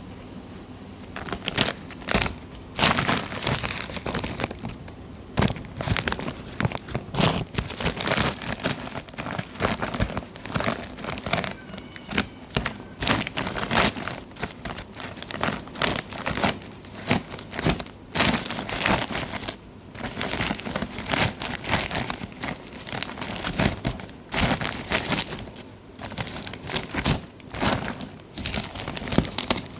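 Plastic packaging crinkling and tearing as a parcel is opened by hand: a dense, uneven run of crackles that starts about a second in.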